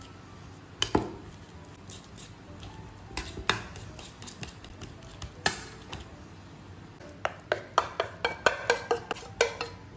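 A metal fork tapping and clinking on a stainless steel plate while mashing ripe bananas, a few separate sharp clicks at first. Near the end comes a quick run of metallic clinks, about four a second, with a brief ring, as the mash is scraped off the plate into a steel bowl.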